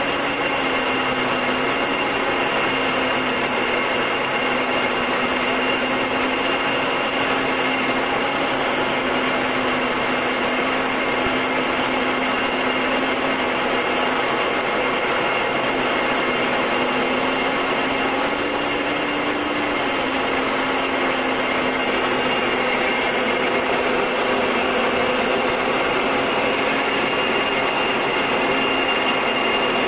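Short Tucano's Garrett TPE331 turboprop engine and propeller running steadily in flight: a constant drone and hiss. A low hum in it wavers slightly in pitch and rises briefly about 18 seconds in.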